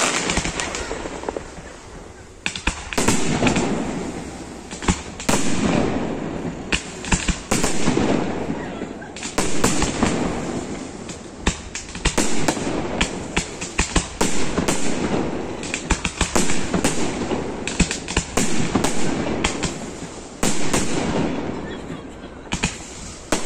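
Aerial firework shells bursting in a steady series of sharp bangs, about one every second or two. Each bang trails off in a fading echo before the next.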